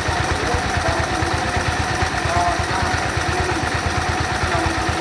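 A small engine running steadily at idle, a fast, even low throb.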